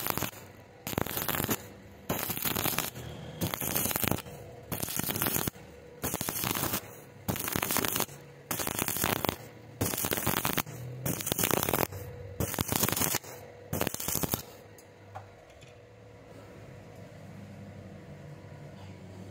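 Stick-welding arc crackling and sputtering in about a dozen short bursts roughly once a second, the arc struck and broken again and again as rebar is welded to a steel tube. The arc stops about 14 seconds in, leaving a low steady hum.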